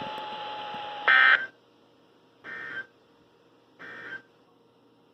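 Emergency Alert System End of Message signal: three short bursts of warbling SAME data tones, each under half a second, about a second and a half apart, the first the loudest. Before the first burst, a steady tone over static hiss.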